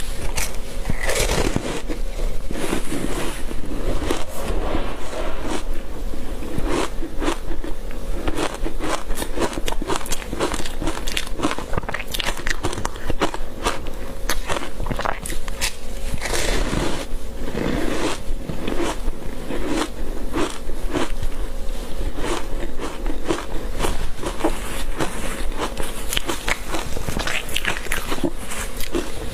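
Close-up crunching of someone biting and chewing frozen matcha green-tea powder ice, with a dense run of crisp crackles and heavier crunches about a second in and again about halfway through.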